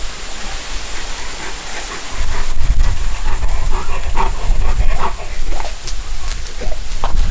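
Steady rain hissing. About two seconds in, a loud, rough low rumble starts over it, with scattered clicks and knocks.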